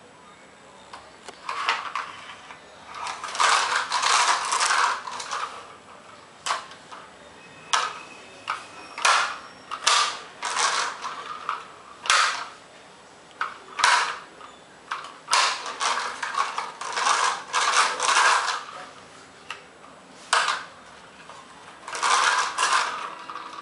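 A small plastic toy car clattering on a tiled floor as it is pushed about and set down, in bursts of rapid clicking a second or two long with single sharp knocks between.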